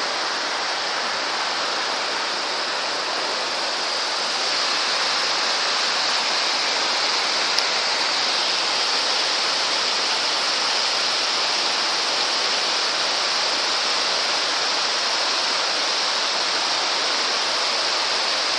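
Mountain torrent rushing steadily over its bed, a continuous hiss of fast white water that grows slightly louder after about four seconds.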